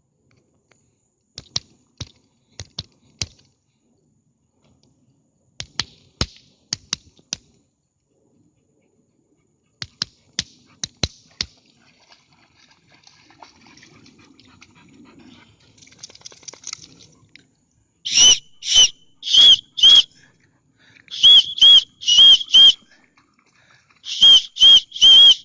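A whistle blown in quick groups of about four short, loud, high blasts, three groups over the last several seconds: a recall whistle calling the dogs back. A few faint sharp clicks come earlier.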